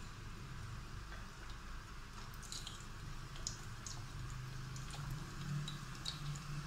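Chopped garlic starting to fry in hot oil in a steel pot: faint, scattered sizzling pops over a low steady hum.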